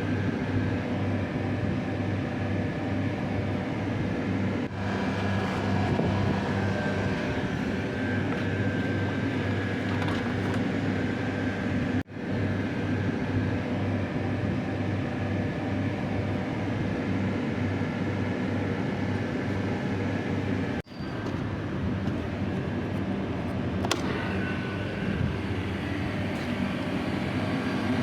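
Water chiller unit running: a steady, loud mechanical drone with a low pulsing hum and a faint steady whine, broken by brief dropouts about 12 and 21 seconds in.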